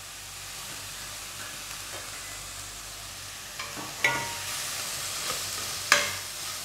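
Julienned vegetables and freshly added sliced mushrooms sizzling in an oiled wok. From about four seconds in a plastic spatula stirs them, scraping and knocking against the pan, and the sizzle grows louder. The loudest knock comes near the end.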